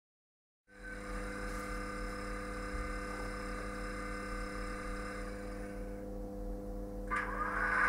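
Sound decoder of an N-scale Hobbytrain Kruckenberg SVT 137 model railcar, played through its tiny speaker: a steady hum of several tones while the model stands. A louder engine sound comes in suddenly about seven seconds in, as the railcar's motor sound rises.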